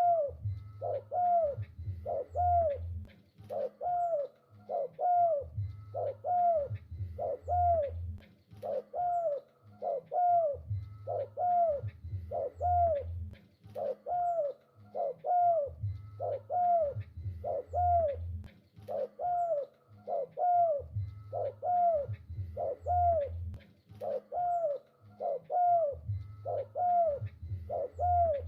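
Spotted dove cooing over and over: short arched coo notes about once a second in a steady, unbroken rhythm, with a deeper low sound in groups that come back every five seconds or so.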